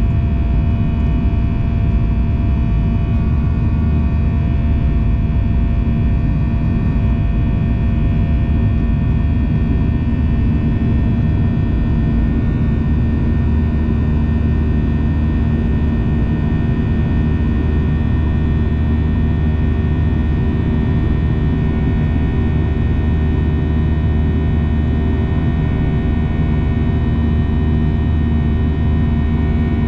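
Steady cabin drone of a Boeing 737-800 in flight: a deep rumble of airflow and CFM56-7B engine noise with a set of unchanging whining tones above it.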